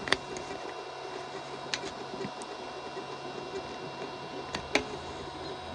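Biqu BX 3D printer running while printing cubic infill: a steady machine hum with several fixed tones, broken by three sharp clicks.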